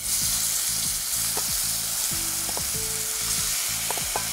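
Marinated diced rockling fish, wet with fish sauce, soy sauce and oil, tipped into a hot oiled frying pan: a sizzle starts abruptly as it lands and holds steady, with scattered pops.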